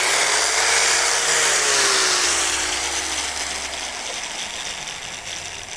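Angle grinder with a sanding pad and an old sandpaper disc running against a painted wooden door panel, then switched off. Its whine falls in pitch and the noise fades over the last few seconds as the disc winds down.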